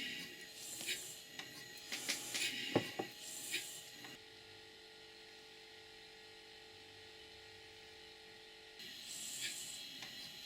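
Duplex boiler feed pump running on a test run: repeated hissing exhaust puffs from its cylinders with clicking and knocking of the valve gear, one knock about three seconds in the loudest. About four seconds in the puffing cuts off abruptly to a faint steady hum, and it starts again about a second before the end.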